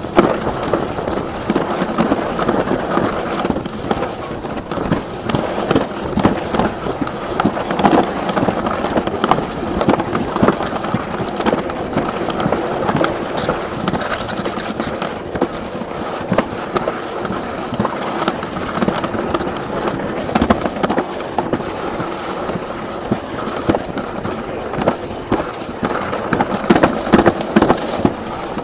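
Alpine slide sled running down the track: a continuous rumbling clatter from the sled on the rough track surface, dotted with irregular knocks.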